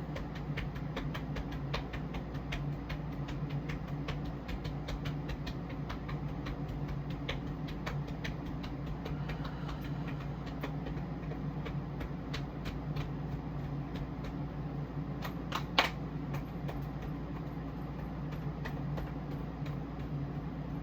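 Steady low machine hum with many faint clicks scattered through it and one louder, sharper click about sixteen seconds in.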